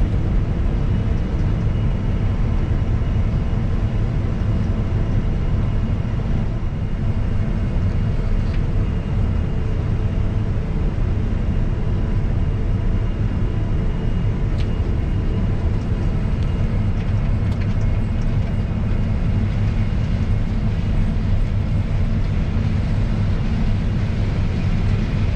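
New Holland CR 9.90 combine running steadily while harvesting corn: a constant low engine and machinery drone with faint steady whines above it.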